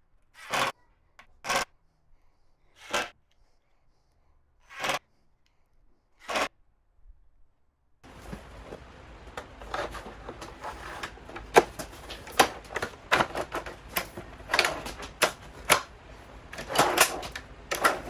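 Tool and hardware noise while a metal drawer slide is screwed onto a plywood drawer box. First come five short separate bursts a second or two apart. About eight seconds in, a busier stretch of sharp clicks and clatter begins.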